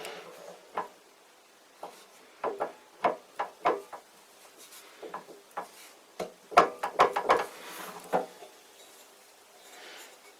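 Metal parts of a homemade steel drill press clamp knocking and clinking as they are handled and fitted to the drill press table, in two clusters of sharp knocks with no motor running.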